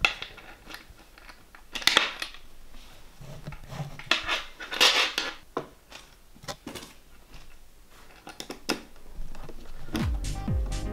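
Hand assembly of flat-pack furniture: scattered clinks, scrapes and knocks as small metal fittings, tools and panels are handled. Electronic music comes in near the end.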